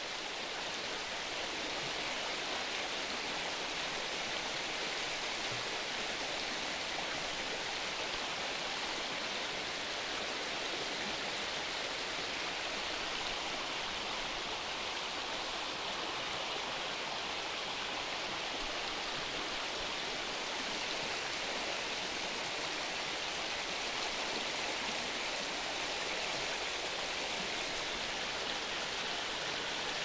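Shallow mountain stream running steadily over rocks: a constant, even rush of flowing water.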